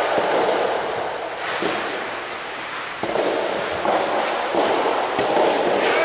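Soft tennis rally: rackets striking the soft rubber ball in sharp pops, three strokes a second or two apart, over a loud, steady background din.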